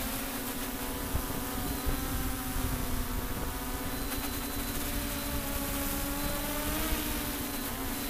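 Multicopter's electric motors and propellers humming steadily as heard from the craft itself, a stack of tones that drifts slightly in pitch as the copter descends toward the grass.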